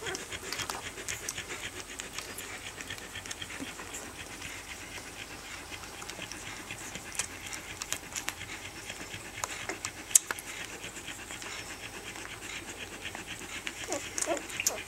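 Rough collie mother panting steadily while her week-old puppies nurse, with small scattered clicks and one sharp click about ten seconds in.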